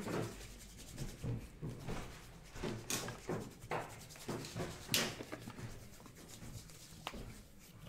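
Playing cards being handled and laid down on a table mat: soft rustling and sliding, with a few sharp taps, the loudest about five seconds in.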